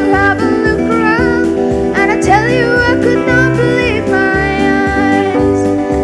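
A male solo voice singing a song through microphones, accompanied by acoustic guitar and sustained chords over a low bass line.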